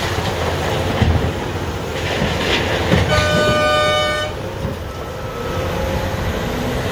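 Cat 390F excavator's diesel engine working steadily while the bucket digs blasted limestone, with a few knocks of rock in the first three seconds. About three seconds in, a horn sounds one blast of a little over a second.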